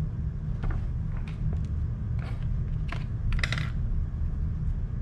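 Colored pencils clicking and tapping against each other and the table as they are picked up and set down: a handful of separate light clicks, over a steady low room hum.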